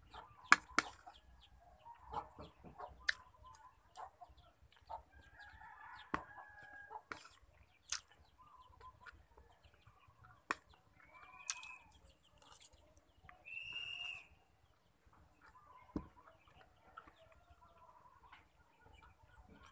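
Metal spoon clinking and scraping against a plate of rice: a scattering of sharp clicks, the loudest about half a second in. Animal calls in the background, with a longer call about two-thirds of the way through.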